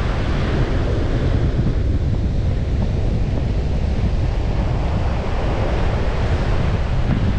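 Ocean surf washing on a beach, swelling and easing, with wind rumbling on the microphone.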